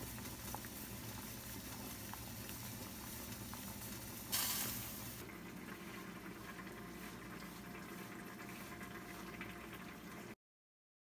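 Pot of water boiling with chopped vegetables in it: a steady bubbling hiss, with a brief louder rush of hiss about four seconds in. The sound cuts off suddenly near the end.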